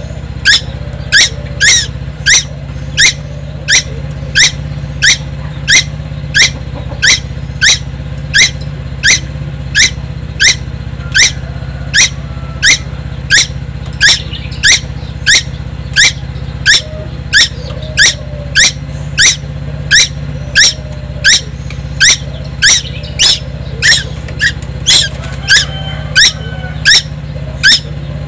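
Young tuwu, a Timor songbird, calling without a break: one sharp, high note over and over, about one and a half a second, over a steady low hum.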